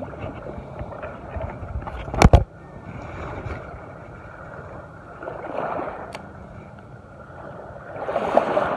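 Small waves lapping at the water's edge, washing in twice, about five and a half and eight seconds in. A sharp thump about two seconds in is the loudest sound.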